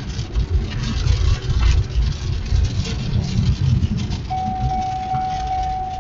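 Vehicle driving, heard from inside the cab: a low, uneven road and wind rumble. A little over four seconds in, a steady single-pitched electronic tone starts and holds.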